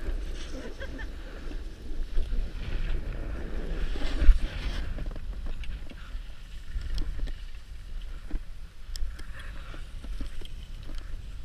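Wind buffeting the camera microphone as a rumble, with a snowboard scraping and sliding over packed snow and a few light clicks in the second half.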